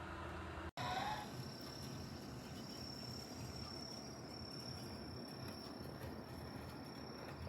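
A steady high-pitched whine or trill over low background noise. It starts after an abrupt cut in the audio a little under a second in.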